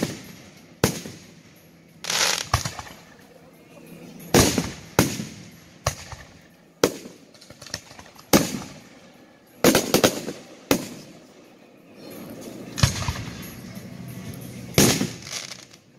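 Aerial fireworks shells bursting overhead: about a dozen booms at uneven intervals, each trailing off in an echo.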